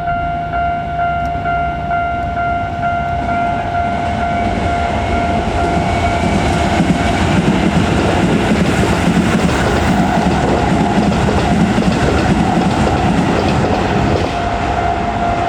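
A train passing over a level crossing, wheels clattering on the rails, while the crossing's electronic warning bell rings. The train's noise builds from about four seconds in and nearly drowns out the bell until it eases near the end.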